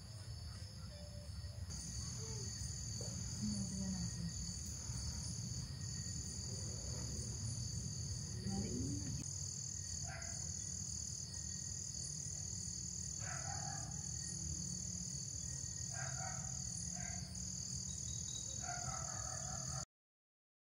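Night chorus of crickets or other insects, a steady high-pitched trill, with frogs croaking in short calls now and then in the second half. The sound cuts off abruptly just before the end.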